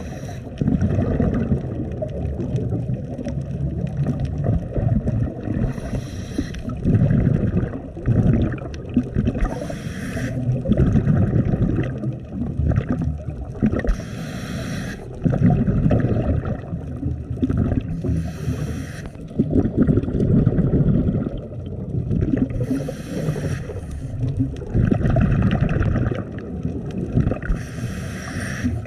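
Scuba diver breathing through a regulator underwater, heard close. A short hiss on each inhale comes about every four to five seconds, followed by a louder low rumble of exhaled bubbles.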